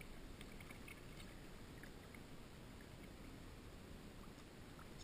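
Near silence on calm water: a faint steady hiss with a few light ticks, the quiet lapping of water against a kayak hull.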